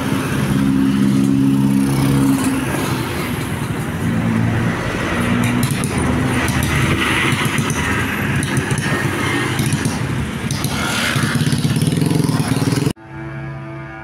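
Busy road traffic with a bus engine running and a multi-tone telolet horn sounding in stepped pitches. The sound cuts off abruptly about a second before the end and gives way to a quieter, steady pitched tone.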